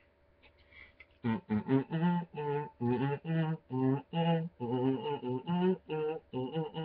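A man humming through closed lips with a full mouth, in short muffled syllables about three a second, starting about a second in.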